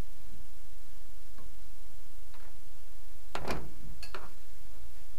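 A few scattered clicks and knocks of hand tools on a metal driveshaft, the loudest a short scrape-and-clack about three and a half seconds in, over a steady low background rumble.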